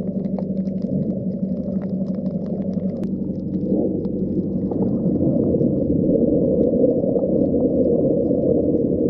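Underwater ambience picked up by a submerged camera: a steady, muffled low rumble with a faint hum and scattered faint clicks, swelling slightly about halfway through.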